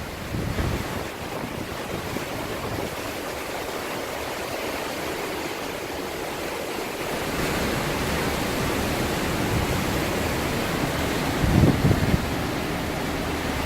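Hurricane-force wind rushing steadily, swelling a little louder about halfway through, with a stronger gust near the end.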